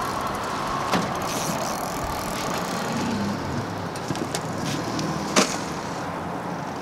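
Steady rushing noise of a boat on a moving river, with a sharp knock about a second in and a louder one about five seconds in.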